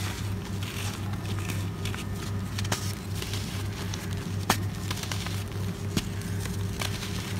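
Dry, sandy floor chunks being crumbled and squeezed by hand: a continuous gritty crunching and trickling of powder, with a few sharper cracks as pieces snap, the clearest about two and a half, four and a half and six seconds in. A steady low hum runs underneath.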